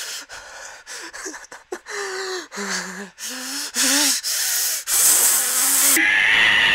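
A man's voice gasping and whimpering in panic, then a long, loud hissing breath, and a cat-like yowl starting near the end.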